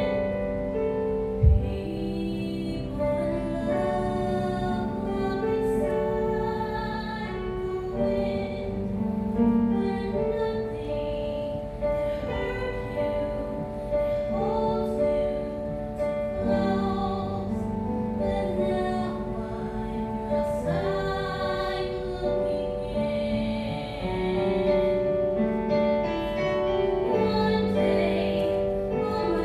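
A woman singing a slow song in long, held notes over instrumental accompaniment. A brief low thump sounds about a second and a half in.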